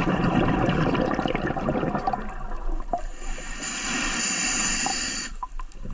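Scuba diver breathing through a regulator underwater: exhaled bubbles gurgle and crackle for the first couple of seconds, then a hissing inhale through the demand valve runs from about three seconds in and cuts off sharply near the end.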